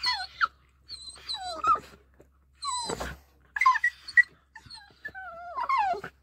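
Jack Russell terrier whining and whimpering in a string of high, drawn-out whines that slide down in pitch, eager to go hunting.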